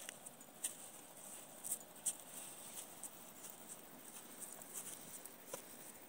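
Faint footsteps scuffing along a grassy dirt trail, with a few irregular light ticks.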